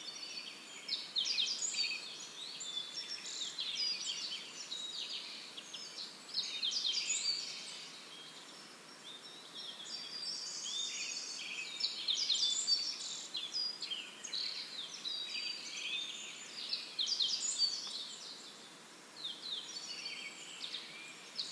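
Many small birds chirping and chattering together, with a couple of brief lulls, over a faint steady hiss.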